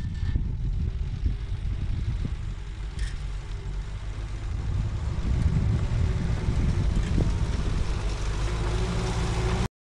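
Motor vehicle engine running, as heard from a car on the move, with a steady low rumble that grows a little louder partway through and then cuts off suddenly near the end.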